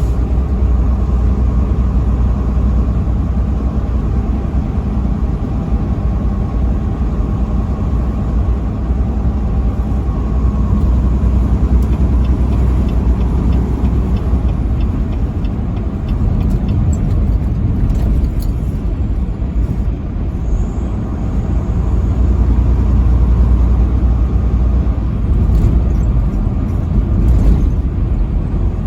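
Steady low engine and road rumble of a vehicle travelling on a highway, with a short run of faint, evenly spaced ticks about halfway through.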